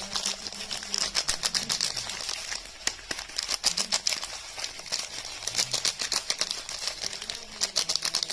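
Dense, rapid crinkling and crackling of soap packaging being handled and unwrapped, a steady run of small sharp clicks with no pauses.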